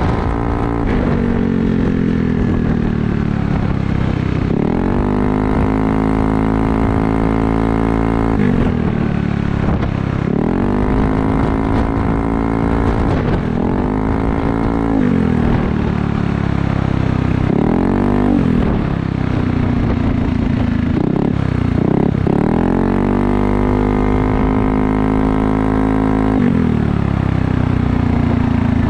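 Yamaha Aerox 155 scooter's single-cylinder engine running through an aftermarket Corse Italian Performance slip-on exhaust with a carbon muffler, revved again and again: each rev rises in pitch and falls back to a low idle, a few of them quick short blips.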